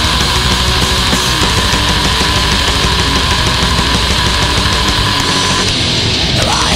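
Recorded heavy metal: distorted guitars, bass and drums playing densely and loudly. About five seconds in the lowest notes drop away and a wavering high-pitched line comes in.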